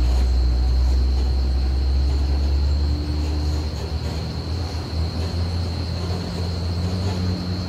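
Heavily loaded Tata truck's diesel engine pulling under load, a deep steady drone that fades somewhat after about three seconds as the truck moves away. A thin steady high whine runs underneath.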